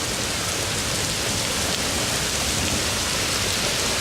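Hail and heavy rain pelting down together in a dense, steady hiss of countless small impacts, as a severe hailstorm begins to ease into rain.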